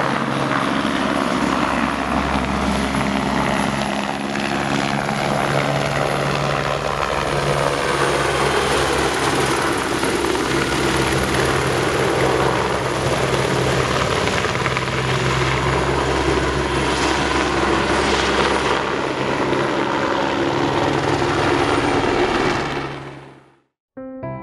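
Crop-spraying helicopter flying low, a steady rotor and engine sound that fades out near the end.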